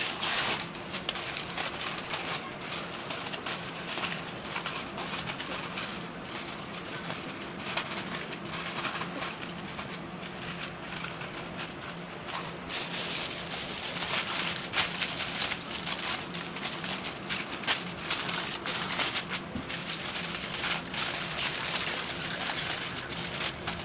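Aluminium foil being folded, crumpled and pressed around a round cake pan: a continuous dense crinkling and crackling.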